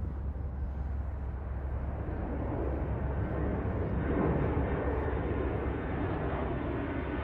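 Airplane noise: a steady low rumble and rush that swells slightly about four seconds in.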